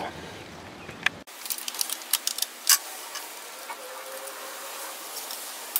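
Light clicks and rattles of hands working the plastic recoil starter housing loose from a Powermore lawnmower engine, with a quick run of sharp clicks in the first few seconds and quieter handling after.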